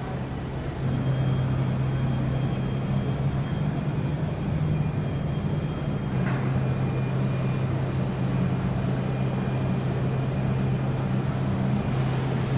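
Steady low drone of cruise ship machinery over a rushing noise, growing a little louder just under a second in.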